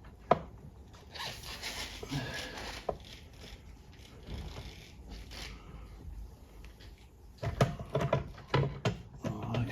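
Hand work on the transmission parts: a sharp click, then a rasping scrape lasting about two seconds, then a quick run of clicks and knocks near the end.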